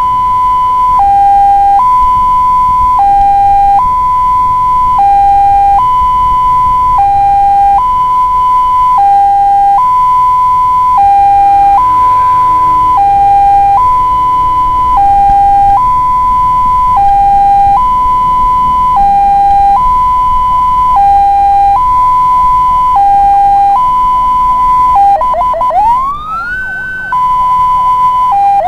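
Ambulance siren in hi-lo mode, alternating between a higher and a lower tone about once a second, over a low rumble. Near the end it switches briefly to quick rising sweeps before returning to the two-tone pattern.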